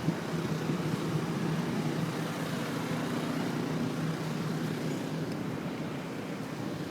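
A steady, low motor-like hum over a hiss.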